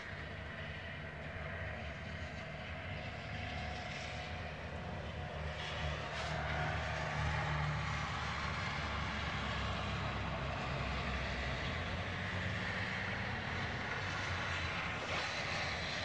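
Low, steady engine rumble of traffic on a wet road under the hiss of falling wet snow, swelling about six seconds in.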